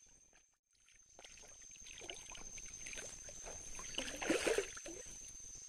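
A hooked hampala thrashing and splashing at the river's surface as it is played toward the bank, in uneven bursts that are loudest about four seconds in.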